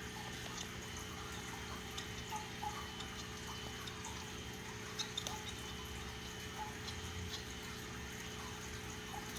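A few short, sharp chirps and clicks from Java sparrows, spaced irregularly and louder about five seconds in, over a steady background hum and a watery hiss.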